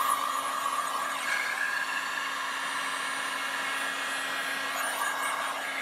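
Biltema heat gun running, a steady blowing hiss over a constant motor hum, heating the tint film to shrink it onto a curved rear window.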